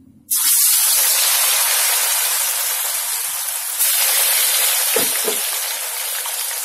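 Damp, cornflour-coated potato sticks dropped into hot refined oil and deep-frying: a loud, dense sizzle that starts suddenly about a third of a second in and carries on steadily, growing louder again just before four seconds in.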